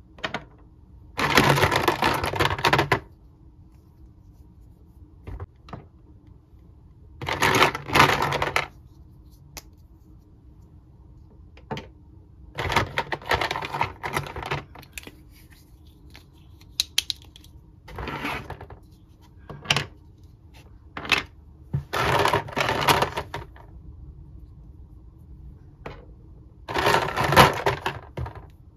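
Hard plastic Mr. Potato Head parts clattering as a hand rummages through a plastic storage bin, in bursts of a second or two, about six times. Single clicks between them as pieces are set down on the table.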